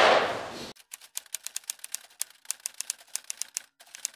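Typewriter keystroke sound effect: a quick run of sharp key clicks, about five or six a second with a short pause, as a caption is typed out on screen. It follows the end of a loud noisy sound that cuts off abruptly under a second in.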